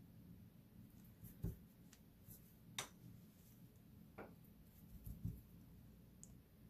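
Near silence: room tone with about four faint, short taps and clicks a second or so apart.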